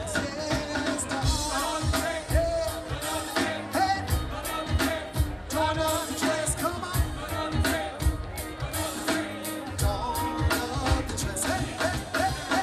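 Live band music with a vocalist singing over drums and bass, heard from within the crowd in front of an outdoor stage.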